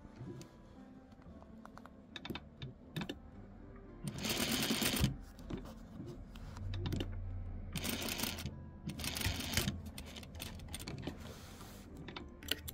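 Sewing machine stitching in a few short runs of rapid needle clicks, the longest about a second long starting about four seconds in, with a low motor hum under the later runs: a patchwork seam being re-stitched and back-tacked so it won't open up.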